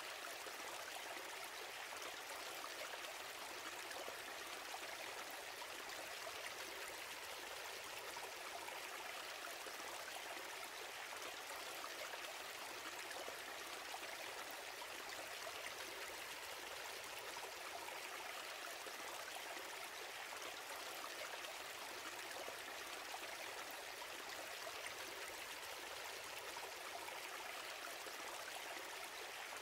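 Steady, even rushing hiss with no rhythm or change.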